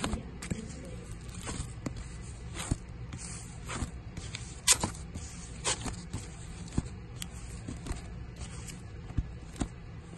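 Vinyl LP records in clear plastic sleeves being flipped through one by one: a sharp plastic slap or click about once a second as each album tips against the next, with light rustling of the sleeves. The loudest slap comes about halfway through, over a steady low hum.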